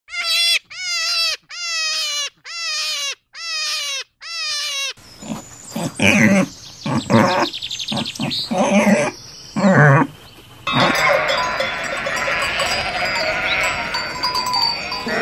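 Goat bleating about six times in a row, each call wavering. Then wild boar and piglets grunting and squealing. About eleven seconds in, a large flock of sheep starts bleating together, many calls overlapping in a continuous din.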